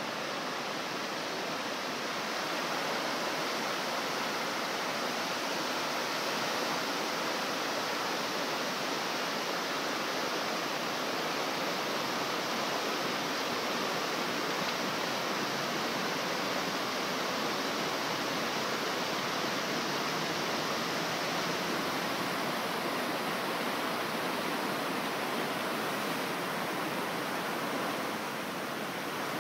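Water from a large multi-jet fountain falling and splashing into its pool: a steady rushing hiss that eases slightly near the end.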